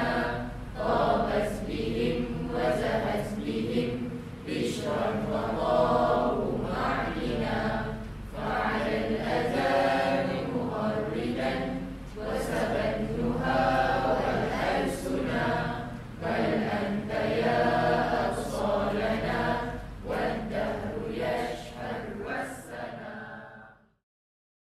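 A group of voices singing Arabic verse in a chant-like melody, with long held, gliding notes; the singing fades out near the end.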